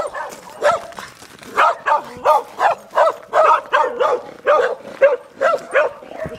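Dog barking over and over, about two to three barks a second, with a short pause about a second in.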